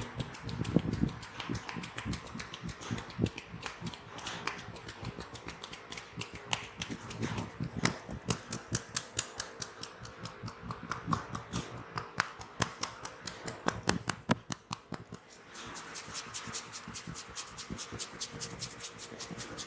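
Hands working on a head and neck in a massage: a dense run of quick taps and light clicks with rubbing, turning hissier and denser near the end.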